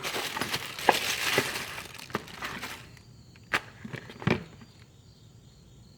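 Packaging crinkling and rustling for about three seconds as tools are unpacked, with a few sharp clicks and knocks of the tools being handled, the last two near the middle.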